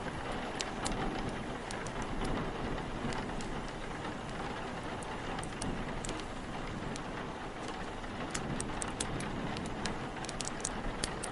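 Steady rain with wind, a dense even rushing noise, with many small sharp fire crackles scattered through it, thickest near the start and near the end.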